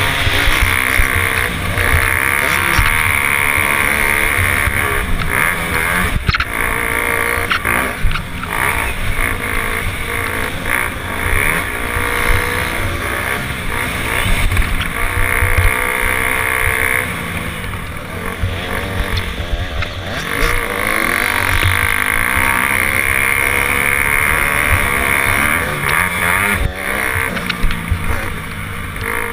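Dirt bike engine revving up and down as the rider accelerates and eases off over the track, with a brief letup in power about two-thirds of the way through.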